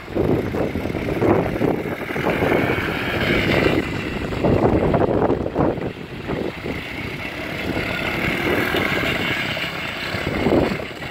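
A 110cc kids' ATV's small single-cylinder four-stroke engine being ridden hard, its note rising and falling with the throttle, with wind on the microphone.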